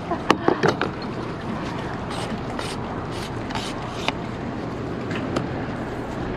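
Steady low running noise of a motor yacht's engines idling, mixed with wind, with a few sharp knocks in the first second.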